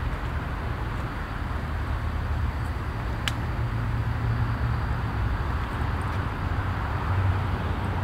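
Steady low rumble of road traffic, with one sharp click about three seconds in.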